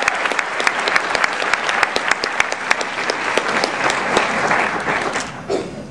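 Audience applauding, many hands clapping; the applause dies away near the end.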